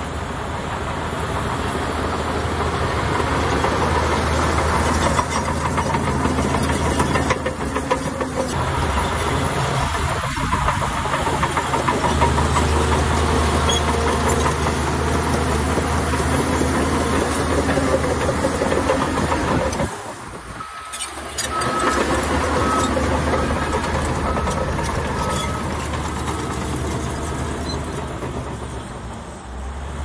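Heavy diesel earthmoving machinery running steadily under load. The engine sound dips briefly about two-thirds of the way through, then picks up again, with a faint repeated high beep for several seconds afterwards.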